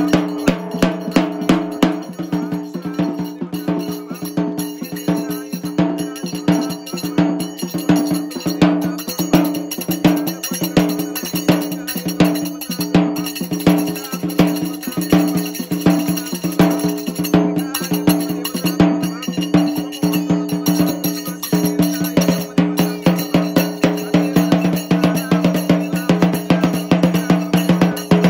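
Fast, even bell-like metallic percussion over a steady ringing tone.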